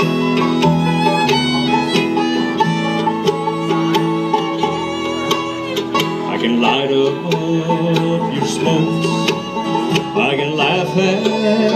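Bluegrass band playing live: bowed fiddle, picked banjo, mandolin, strummed acoustic guitar and upright bass together.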